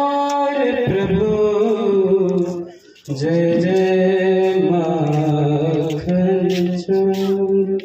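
A man's voice chanting a devotional hymn in long, held notes, with a short pause for breath about three seconds in.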